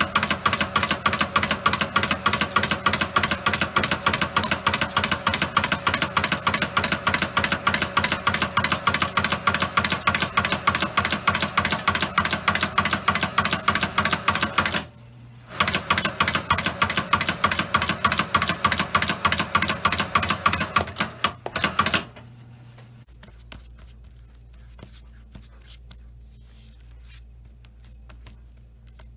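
Stitching machine running in fast, even strokes. It stops for about half a second partway through, runs again, then stops, leaving only a low motor hum.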